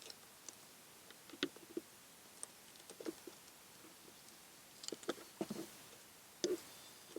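Faint, irregular small plastic clicks and taps from prying at a car's interior light housing and its cover. They come in a few short clusters with quiet between.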